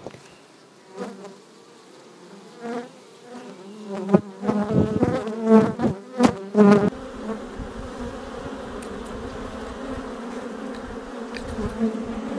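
Honeybees buzzing around an opened hive. For the first few seconds single bees zip loudly past the microphone, and after that the colony settles into a steady hum over the exposed frames.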